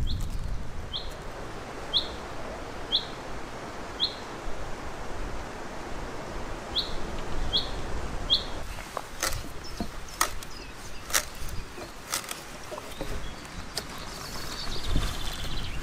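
A bird repeating a single short, sharp call note about once a second over a steady outdoor hiss. From about the middle on, sharp knocks come roughly once a second.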